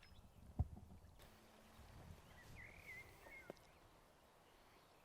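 Near silence with a faint outdoor background. There is a soft low thump about half a second in, a short faint chirp just past the middle, and a small click soon after.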